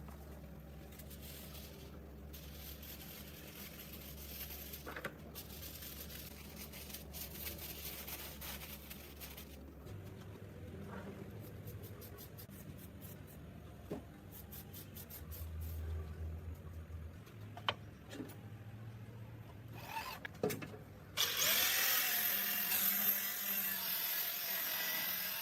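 Workshop tool sounds: a steady low hum with scattered clicks and knocks, then a louder stretch of hissing noise in the last few seconds.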